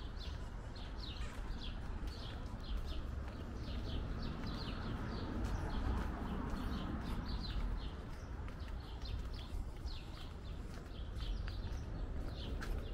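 Outdoor street ambience: a steady low rumble with a regular run of short, high chirps or squeaks, about two a second.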